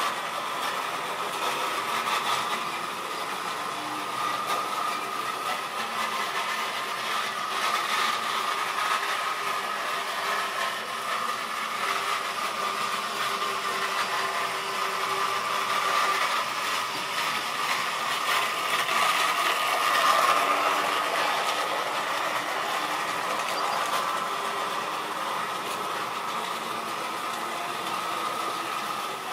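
Tri-ang or Lima model railway trains running on the track: a steady motor whine over a continuous rattle of wheels on rail, swelling a little about twenty seconds in.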